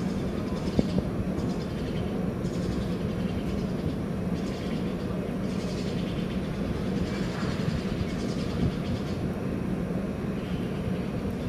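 Steady low rumbling noise with a constant low hum underneath, and a couple of faint clicks about a second in.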